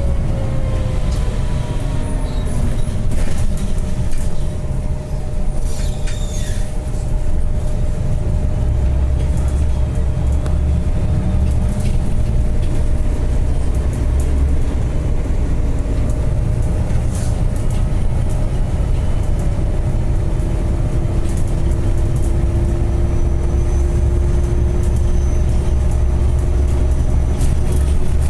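Bus running on the road, heard from inside the cabin: a steady, loud low rumble with a faint engine whine that falls in pitch near the start and slowly rises near the end.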